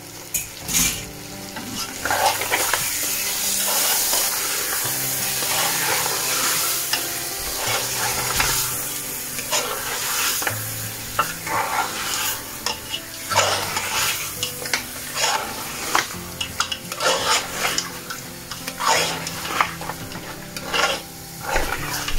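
Metal spoon stirring and scraping lamb chops in spices and yogurt around an aluminium pot, with repeated scrapes against the pot. Under it the mixture sizzles as it fries, louder in the first half.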